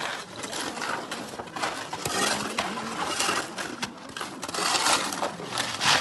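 Shovels scraping and grating through a heap of concrete mix (cement, sand and gravel) being turned by hand on the ground, in irregular overlapping strokes.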